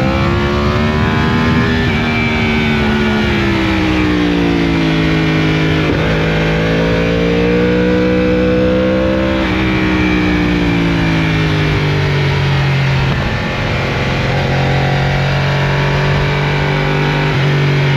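Yamaha R1's crossplane inline-four through an Akrapovic exhaust, ridden under changing throttle. The note climbs over the first couple of seconds, eases off, climbs again around the middle, then drops about two-thirds of the way in and holds steady to the end.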